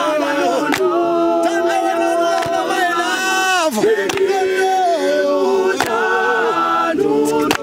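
Male a cappella choir singing a gwijo song in close harmony, holding long notes that slide in pitch, with a few hand claps among the voices.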